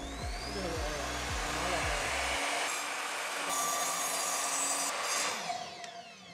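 Sliding mitre saw running at speed with a steady whine, its blade cutting through a pine board with a bright, hissing rasp from about three and a half to five seconds in. After the cut the motor is released and the blade winds down with a falling whine near the end.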